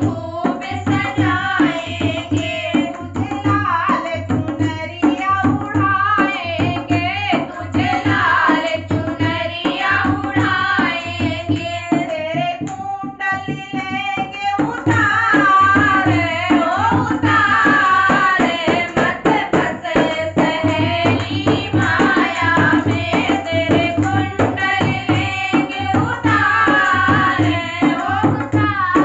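Women singing a Hindi devotional bhajan together, accompanied by a hand-played dholak (two-headed barrel drum) keeping a steady beat.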